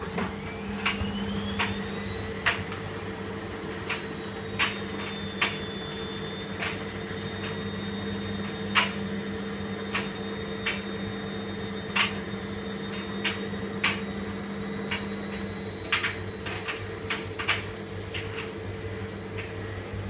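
Washing machine spinning up: the motor's whine rises over the first two seconds, then holds steady over a low hum. Irregular sharp knocks come from the machine every second or two.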